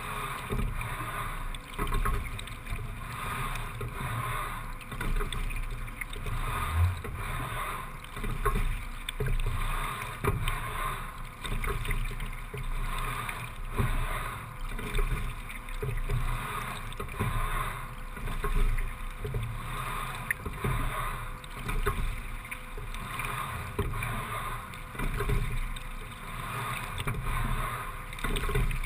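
Single racing scull being rowed at a low steady rate, about 17–18 strokes a minute: a regular swell of oar and water noise with each stroke over a steady wash of water along the hull.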